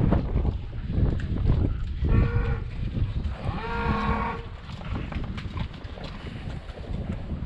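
Cattle mooing twice, a short moo about two seconds in and a longer one about a second later, over wind buffeting the microphone.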